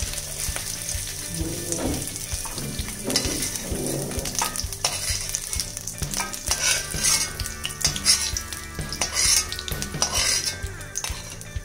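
Steel spoon scraping and clinking against a metal kadai as fried potato cubes are scooped out, over the steady sizzle of hot oil.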